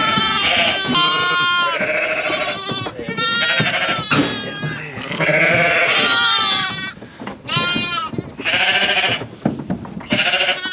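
A flock of Lleyn ewes and young lambs bleating loudly, many overlapping calls one after another, some high and some lower in pitch. The ewes and lambs have just been turned out and are calling to find each other and mother up.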